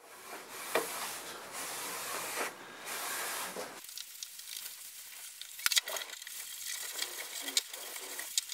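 Cloth damp with white spirit wiped in long rubbing strokes over a bare wooden panel to lift off dust. About four seconds in, the rubbing turns quieter and scratchier, with a few light clicks.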